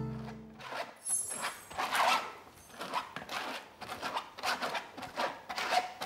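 Red plastic scraper pushing ricotta through a drum sieve's mesh: short rasping scrapes, about two a second. Guitar music fades out in the first second.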